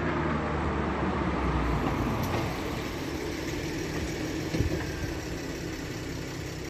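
Volkswagen Passat 3.2 V6 FSI engine running through its stock exhaust and settling toward idle, getting quieter from about two seconds in. A single short knock about four and a half seconds in.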